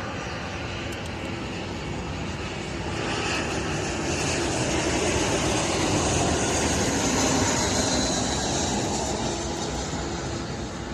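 Jet airliner passing close by, its engine roar building to a peak mid-way with a high whine, then fading as it moves off.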